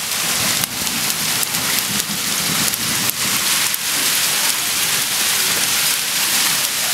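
Heavy rain falling on a street and a stone window ledge, heard through an open window: a dense, steady hiss with many scattered sharp ticks of drops striking close by.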